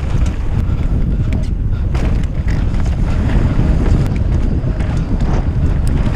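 Wind buffeting a GoPro Hero Session 5's microphone as a mountain bike rides dry dirt singletrack at speed, with a steady low rumble from the tyres and trail and scattered sharp clicks and rattles.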